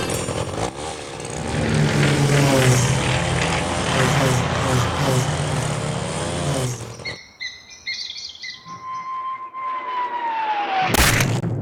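Cartoon sound effects: a loud, rough, wavering mechanical-sounding noise for about seven seconds that cuts off abruptly, then a few quick bird-like chirps, a falling whistle and a sharp thud near the end.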